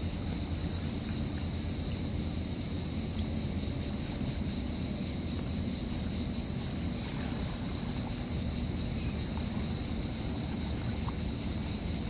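Cicadas singing in a steady, unbroken high-pitched chorus, over the low steady rumble of the Mega Express Four ferry's engines as it sails out of harbour.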